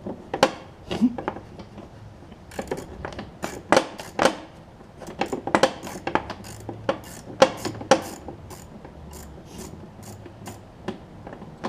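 Socket wrench on an extension loosening a 7/16-inch nut on a mower's clutch-cable mount: irregular metallic clicks and clacks in short spurts.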